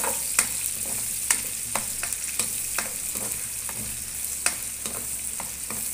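Sliced onions sizzling in hot oil in a wok as they are browned, with a steady hiss. A spatula stirs them, tapping and scraping the pan in irregular clicks about twice a second.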